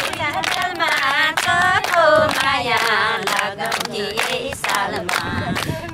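Group of women singing a Nepali lok dohori folk song together, with steady hand clapping in time, about three claps a second.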